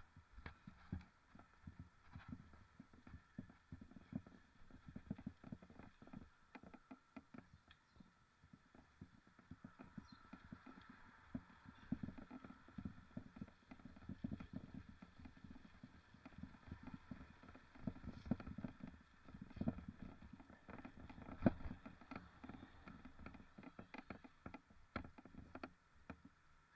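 Mountain bike rattling and knocking over rough ground: faint, irregular clicks and knocks over a low rumble.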